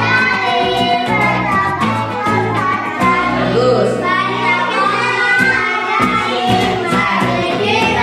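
A children's song: singing voices, children's among them, over a steady instrumental backing.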